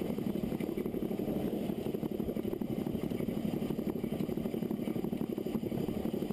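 Narrow-gauge steam locomotive No. 4 Loch running at speed: a steady mix of exhaust beats and wheel-and-rail clatter, with no whistle.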